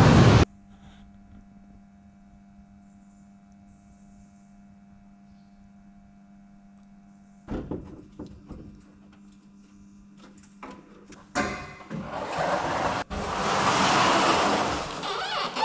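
A loud burst that cuts off abruptly half a second in, then a faint steady hum for several seconds. Scattered clicks and knocks follow, then a loud rushing hiss that swells and fades near the end.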